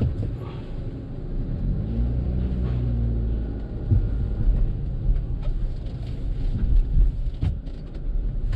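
Low rumble of a car heard from inside its cabin, with a few short knocks.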